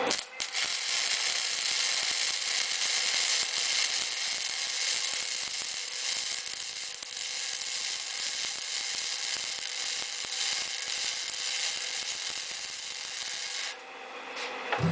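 Self-shielded flux-core welding arc crackling steadily for a long bead, stopping abruptly about a second before the end.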